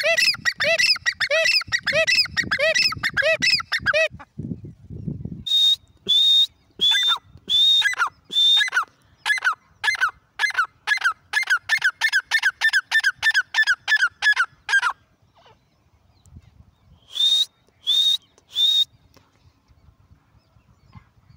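A Dakhni teetar (grey francolin) calling: fast runs of repeated sharp, ringing notes, about three a second, many starting high and dropping in pitch. The bird calls in bursts of several seconds, with a short low rustle about four seconds in, a pause after the longest run, and three last calls near the end.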